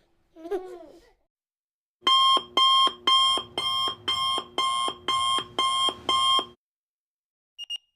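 Electronic alarm-clock beeping: about ten loud, even beeps, a little over two a second, that stop abruptly. Near the end a second series of shorter, higher beeps begins.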